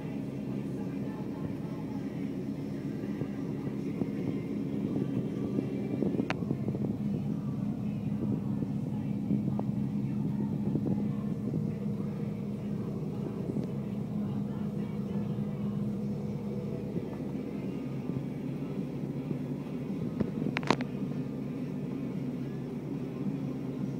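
Fendt 718 Vario tractor engine running steadily under load as it pulls a rotary rake, heard as a low drone from inside the cab. A couple of sharp clicks cut through, one about six seconds in and another near the end.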